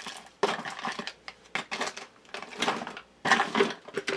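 Crinkling plastic packaging being handled, in short irregular rustles.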